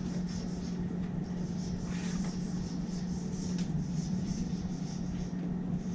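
Felt-tip marker scratching and squeaking on flip-chart paper in short irregular strokes, over a steady low electrical hum.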